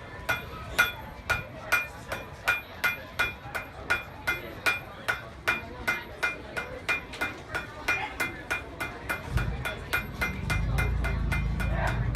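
Blacksmith's hammer striking on an anvil in a steady rhythm, about two to three ringing blows a second. A low rumble comes in near the end.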